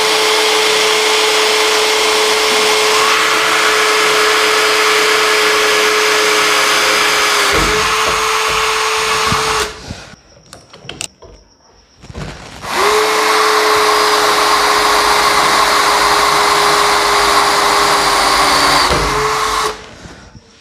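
Bosch GSB 180 LI 18 V cordless drill running at a steady speed as its 5 mm bit drills through aluminium angle: one hole of about ten seconds, a short pause of about three seconds, then a second hole of about seven seconds.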